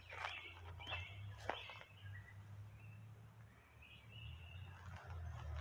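Footsteps on sandy ground, a few sharp steps mostly in the first two seconds, over a steady low rumble. Short, faint bird chirps come in later.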